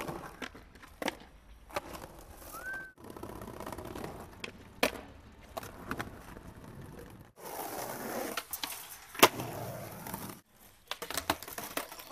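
Skateboard wheels rolling over paving, cut by sharp clacks of the tail popping and the board landing, over several short takes. The loudest clack comes about three-quarters of the way through.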